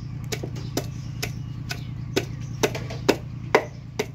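Irregular sharp taps or knocks, roughly two a second, over a steady low engine-like hum.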